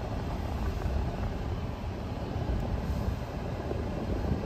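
Steady low rumble of a car's engine and tyres heard from inside the cabin while it drives slowly in traffic.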